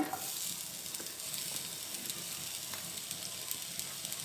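Sliced onion frying in a little hot oil in a pan: a steady sizzle that starts suddenly as the onion goes in, with a few faint crackles.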